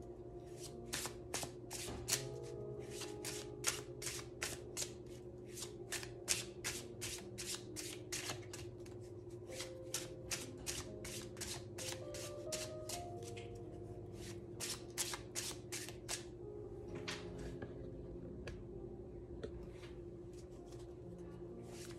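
A deck of tarot cards being shuffled by hand, the cards slapping and riffling against each other in quick, irregular snaps, several a second. The snapping thins out for a couple of seconds near the end, then picks up again.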